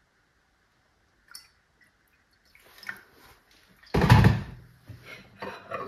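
Kettle and mug being handled on a kitchen counter while a hot drink is made: a light click, a few soft knocks, then a loud clunk about four seconds in followed by smaller knocks.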